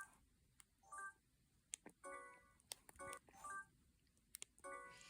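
Samsung SGH-G600 mobile phone giving a string of faint, short electronic tones, each lasting a fraction of a second, with light clicks of its keys in between.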